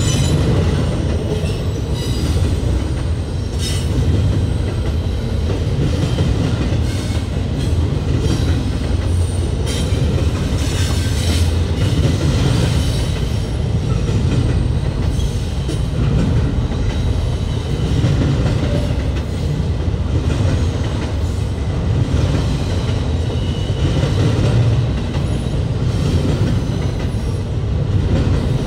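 Freight train rolling past: a steady, loud low rumble of wheels on rail, with thin, high wheel squeals and occasional clacks of wheels over rail joints.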